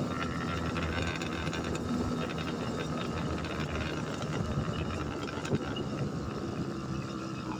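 Motorized bicycle's small engine running steadily under way, with a noisy haze over it and one brief sharp click about five and a half seconds in.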